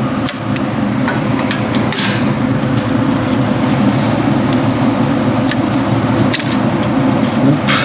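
Scattered light metallic clicks and taps of hands and tools working on a small engine's fuel system and carburetor, over a steady low background hum.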